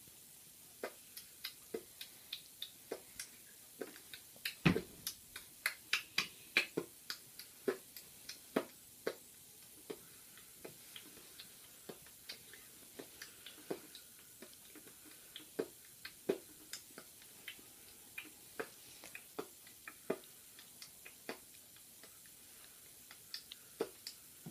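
Scattered sharp clicks and crackles of tulle netting being gathered and bunched by hand, densest about four to nine seconds in.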